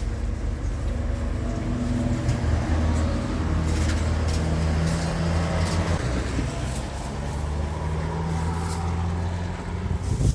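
An engine running steadily with a low, even hum that shifts slightly in pitch, with a few light clicks over it.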